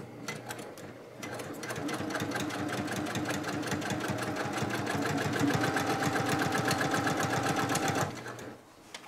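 Electric sewing machine stitching down a quilt's binding: the needle starts slowly, speeds up over the first couple of seconds, then runs fast and steady with a motor hum before stopping abruptly about eight seconds in.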